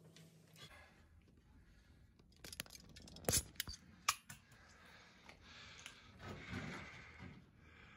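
Faint footsteps on a gritty concrete floor: a few sharp clicks around the middle, then a softer scuffing scrape.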